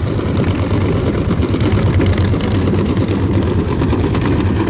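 Hydrophone recording of a ship underwater: a steady low drone and rumble of its engine and propeller, with a strong low hum.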